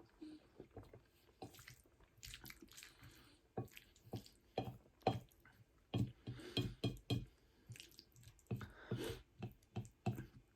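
Close-miked wet chewing: irregular soft smacks and little clicks of a mouth working on a mouthful of food.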